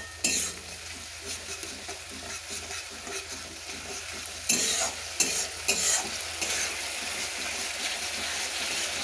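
Onion, tomato, ginger-garlic and chilli masala sizzling in a metal pan, loosened with a splash of water, while a steel spatula stirs and scrapes it. There are a few louder scrapes against the pan a little past the middle.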